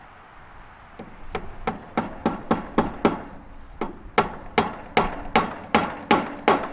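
Hammer driving nails into the wooden boards of an old barn's gable: about sixteen sharp blows at roughly three a second, starting about a second in, with a brief pause just after three seconds and harder strikes in the second half.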